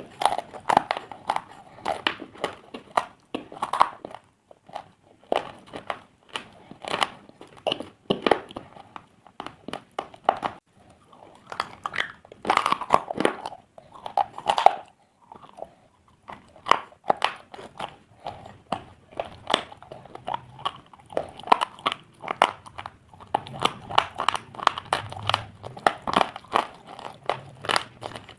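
Pieces of slate being bitten and chewed: a long, irregular run of sharp crunches with short pauses between bites.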